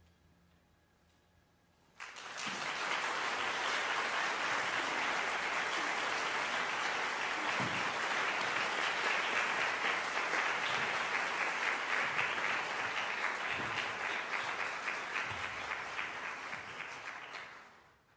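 Concert audience applauding. About two seconds of near silence after the final chord, then the applause breaks out suddenly, holds steady as dense clapping and fades out near the end.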